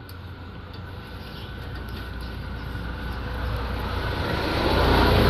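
A motor running with a steady rumble that grows gradually louder throughout, as of an engine drawing closer.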